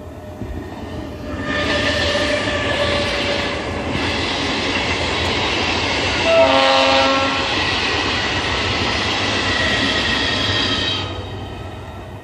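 DEMU (diesel-electric multiple-unit) train passing close by while sounding its hoarse horn. One long blast comes about a second and a half in and another around the middle, over the loud rumble of the train, which fades near the end.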